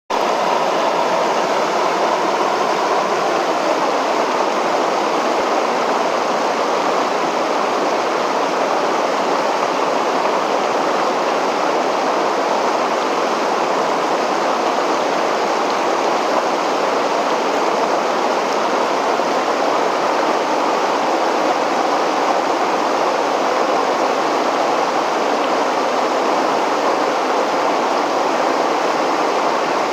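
River water pouring over a weir's concrete crest, a steady, unbroken rushing noise that holds the same level throughout.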